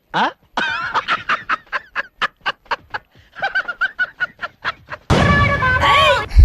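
A man laughing hard in a rapid run of short "ha" bursts, about four or five a second, for some five seconds. Music then cuts in loudly near the end.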